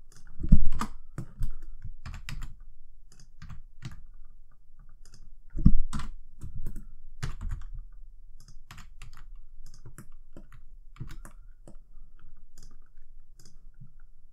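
Computer keyboard keys pressed in an irregular run of sharp clicks, with two louder thumps about half a second in and near six seconds in.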